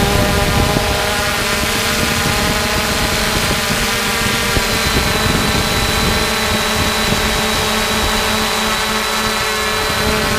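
3DR Solo quadcopter's four electric motors and propellers running in flight: a steady hum of several tones held at an even pitch, with a rough rumble underneath.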